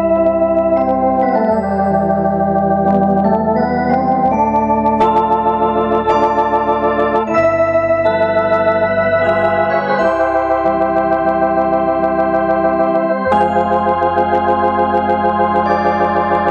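Drawbar organ played by hand: sustained chords over a bass line, the chords changing every second or two, with a warble on the held notes and a small click as some new chords are struck.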